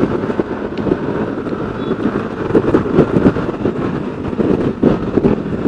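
Honda CB150R's single-cylinder engine running through a 3Tech Spartan GP aftermarket racing exhaust, heard from a bike following behind. The exhaust note has an uneven, pulsing beat that sounds like a two-cylinder.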